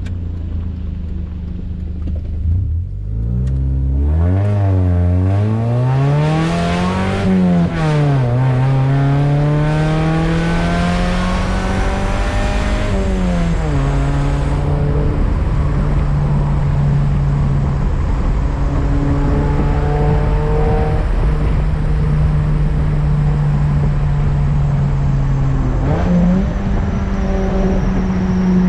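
Honda Accord wagon's F22B1 four-cylinder engine pulling through the gears: revs climb, drop sharply at a gear change about seven seconds in, climb again and drop near the halfway point, then hold steady at a cruise before rising again near the end.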